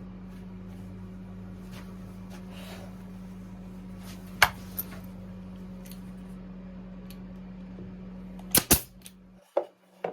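Brad nailer firing into wood: one sharp shot about four seconds in, then a quick run of several shots near the end, over a steady low hum that cuts out shortly before the last shots.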